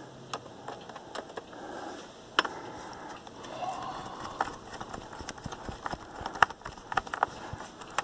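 Scattered light clicks and taps of a screwdriver working the captive screw of the memory cover on the underside of a Dell Latitude D630 laptop, as the cover is seated and screwed down. The clicks come irregularly, one about two and a half seconds in and a cluster near the end.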